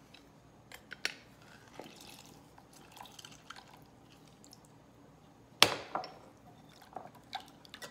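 Lime juice dripping from a handheld citrus press into a glass bowl, with faint scattered clicks. About five and a half seconds in there is one sharp knock, the loudest sound, followed by a few light clinks of a wire whisk against the glass bowl.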